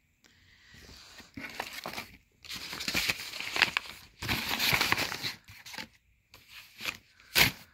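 Crinkling and rustling of something being handled, in three stretches of a second or so each, followed by a few clicks and one sharp click near the end.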